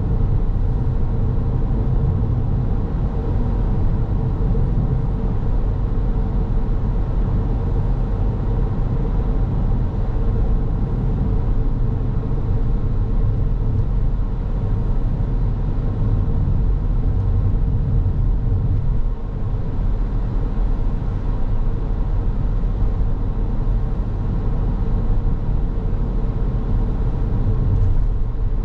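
A car driving on the road: steady tyre and engine rumble with a constant hum, and a brief slight drop in level about two-thirds of the way through.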